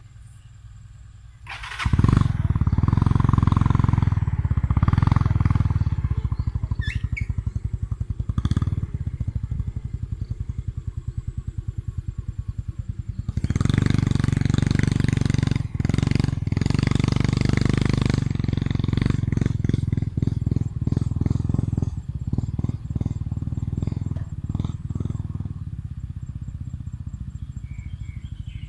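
Heavy diesel engine cutting in sharply about a second and a half in and running hard, rising in two long surges of revving with an even, fast beat, then easing off toward the end.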